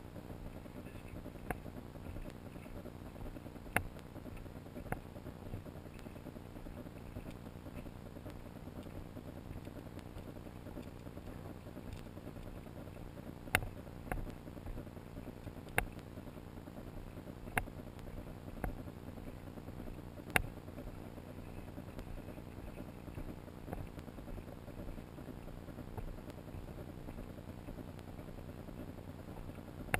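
Steady low rumble of wind and movement noise on a body-carried camera moving along a dirt trail, with sharp clicks and taps at irregular moments.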